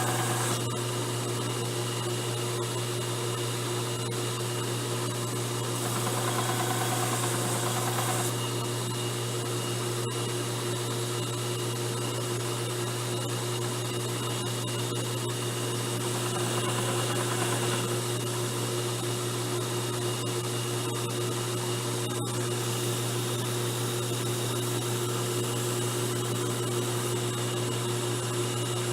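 Electric belt grinder running steadily, its motor humming and the sanding belt whirring over its bearing rollers. It swells louder and hissier for a couple of seconds about six seconds in and again about sixteen seconds in.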